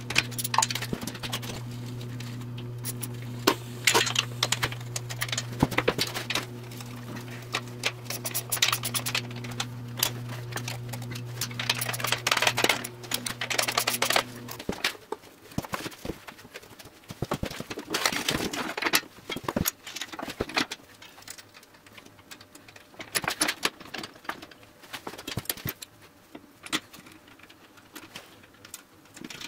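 Hand tools and metal parts clinking and rattling in irregular bursts while a small engine and its belt-drive pulleys are worked on. A steady low hum underneath cuts off about halfway through.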